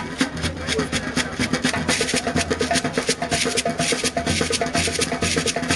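Percussion music: rapid, steady drum strokes over a recurring low beat, with short pitched notes above.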